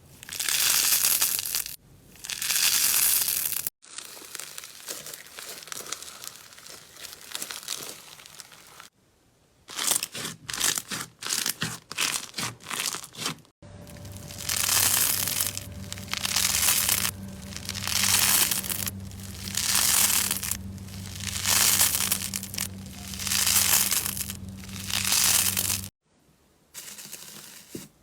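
Slime being squeezed, stretched and pressed by hand in a run of short clips, with crackling, crinkling squelches. In the middle there is a stretch of rapid short crackles, and in the later part the sound swells and fades about once a second over a low steady hum.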